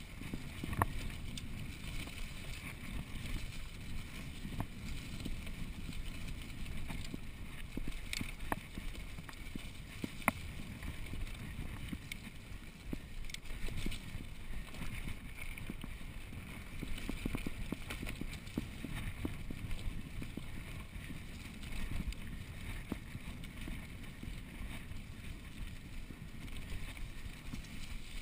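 Mountain bike riding fast on a dirt trail: a steady rumble of tyres and wind on the handlebar-mounted microphone, with scattered sharp rattles and knocks from the bike over bumps.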